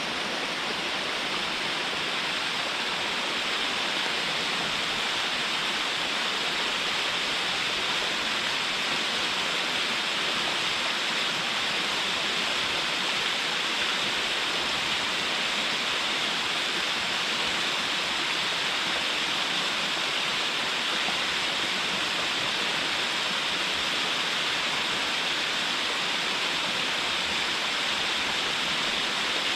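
Small waterfall pouring onto rocks and stones: a steady, even rush of falling water, strongest in the hiss range.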